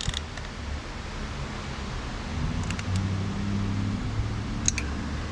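A socket wrench snugging the two 12 mm nuts on a 2JZ thermostat housing, giving a few light metal clicks, over a steady low hum that gets stronger about halfway through.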